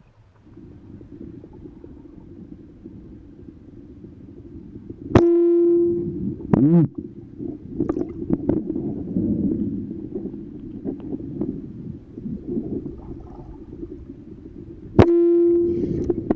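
Two speargun shots heard underwater, about ten seconds apart. Each is a sharp crack followed by a brief ringing tone that dies away within a second. Steady low underwater rumble runs beneath.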